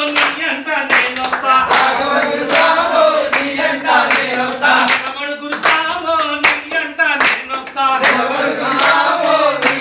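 A group of men singing a devotional bhajan together while clapping their hands in a steady rhythm, in a small room.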